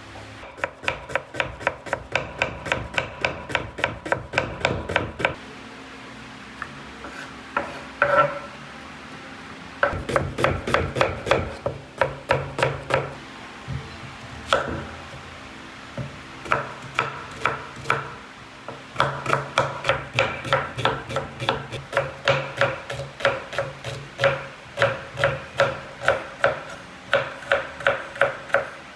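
A knife chopping quickly on a wooden board, about four strokes a second, in runs of several seconds broken by short pauses; each stroke rings briefly.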